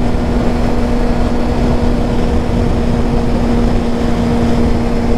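Motorcycle engine running at a steady cruising speed, a constant unchanging drone, over a heavy rush of wind and road noise.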